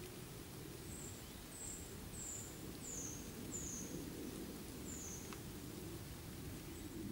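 A small bird calling a series of six thin, high notes, each dipping slightly in pitch, over a steady low background rumble.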